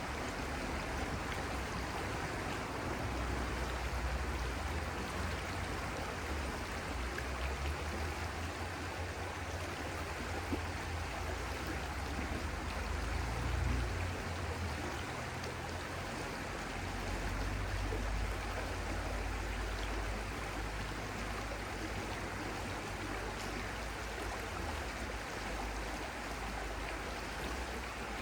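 Stream water flowing steadily, with a low rumble underneath that swells and fades.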